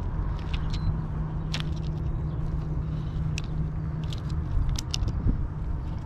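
Scattered small clicks and scrapes of gloved fingers digging packed, oil-soaked sawdust out of a pole saw's plastic sprocket cover, over a steady low engine hum.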